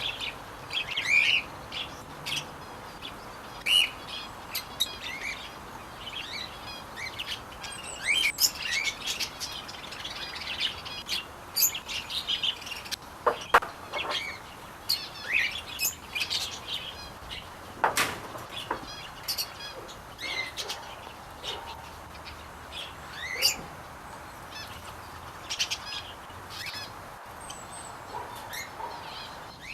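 Small aviary birds chirping and tweeting: many short, high calls scattered throughout, with occasional sharp clicks over a steady background hiss.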